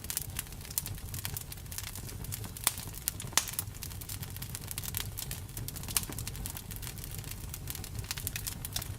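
Campfire crackling: a dense run of small snaps and pops over the low rumble of the burning wood, with a few sharper pops around the third second and one near the sixth.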